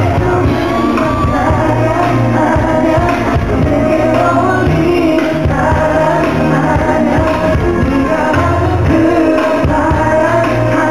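Live band playing a K-pop song in a tango arrangement, with singing, heard from the audience in a large hall.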